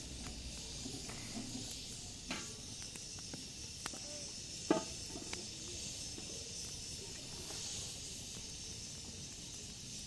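Steady hiss from a steaming cooking pot on an open wood fire, with a few sharp clicks and clinks; the loudest comes about halfway.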